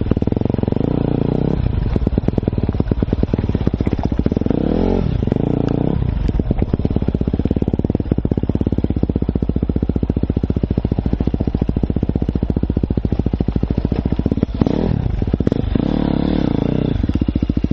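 Enduro dirt bike engine running under way, heard from the rider's helmet, its revs rising and falling with the throttle. The revs dip and climb sharply about five seconds in and again near fifteen seconds.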